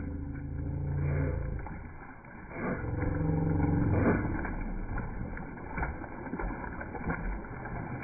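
Slowed-down swimming audio of a bulldog in water, pitched far down into a low rumble with drawn-out swells and no high sounds.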